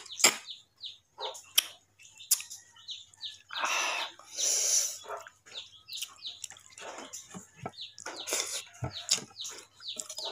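Close-up eating sounds from boiled crab: repeated sucking and lip smacks on the meat, with a longer sucking sound about four seconds in, and small cracks and clicks as the shell is pulled apart by hand.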